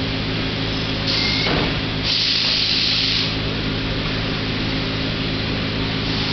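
Steady machinery hum with several even tones, broken about a second in and again at two seconds by two short hissing scrapes, the second about a second long, as cardboard slides against the packed tub box.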